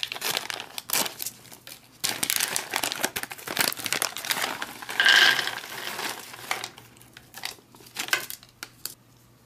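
Laminated ration pouch being torn open and crinkled in the hands, a dense crackle of plastic-foil packaging. About halfway through, the nut and raisin mix spills out onto a plastic tray, the loudest moment. Then the empty wrapper is crumpled.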